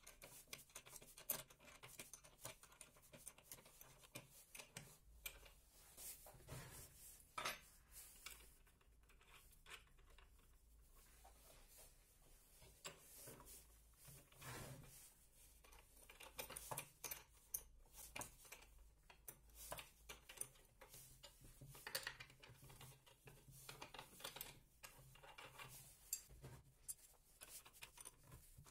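Faint clicks and scrapes of a spanner turning nuts and bolts, with small knocks of metal parts being handled.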